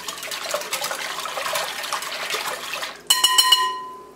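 Wire whisk stirring melted butter, hot water and sugar in a glass bowl, the liquid sloshing and the wires clicking against the glass. About three seconds in, a few quick taps against the glass bowl set it ringing with a clear tone that fades away.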